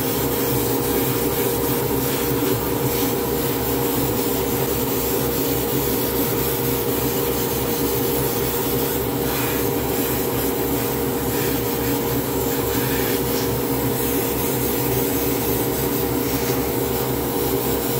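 Airbrush spraying paint in a hobby spray booth: a steady motor hum from the booth's extractor fan and the airbrush compressor, with a fast low pulsing under it and a hiss of air over it.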